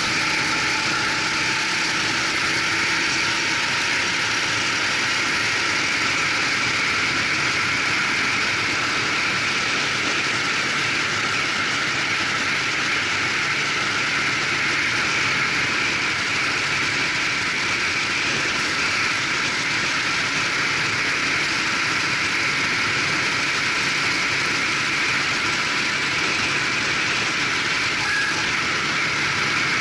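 Racing go-kart's engine running under power as the kart laps the circuit, recorded on board: a steady rush of engine and wind noise with little change in level.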